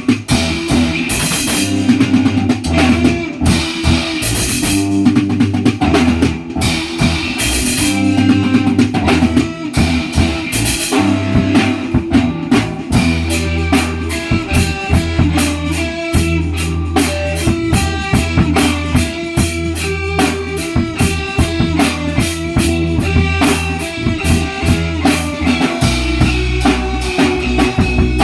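A band playing an instrumental piece on guitar and drum kit, with a low bass line under a steady beat.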